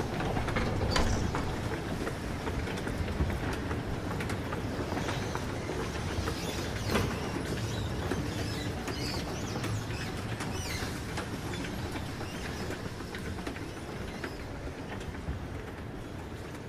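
Steady rumbling noise with scattered clicks and knocks, slowly fading; no music or singing.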